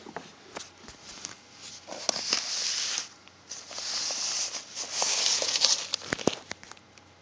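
Newspaper rustling and crinkling as guinea pigs burrow and push under the pages: scattered light crackles, then two longer stretches of paper rustle, about two seconds in and again from three and a half seconds.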